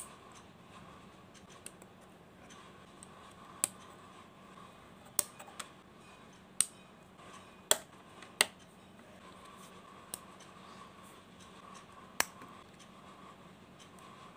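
Plastic LEGO bricks and plates clicking as they are pressed and snapped together by hand: about ten sharp, irregularly spaced clicks over a faint steady hum.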